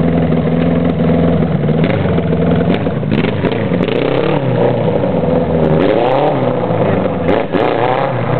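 A homemade lawn tractor's 1100 Yamaha engine running, steady at first, then revving up and down in pitch several times as it is driven hard. There is a brief knock near the end.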